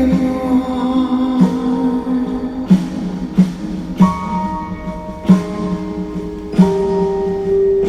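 Song instrumental passage: plucked guitar chords and sustained notes, with a new chord struck about every second and a half.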